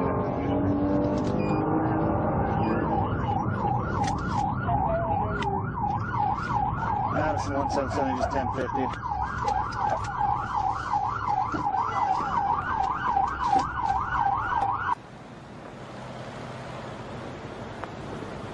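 Police siren on a fast yelp, its pitch sweeping up and down about three times a second over road and engine noise. It cuts off suddenly about fifteen seconds in, leaving steady wind and road noise.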